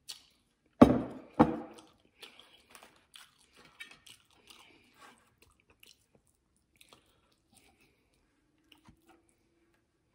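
Close-miked eating sounds: two loud thumps about a second in, then a run of small clicks, crackles and chewing noises that thin out, as fork and knife cut into foil-wrapped salmon.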